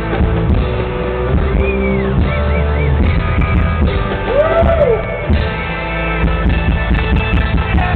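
Live rock band playing loudly, with electric guitar prominent and sliding notes over a steady bass and drums, recorded close to the stage with a dull, muffled top end.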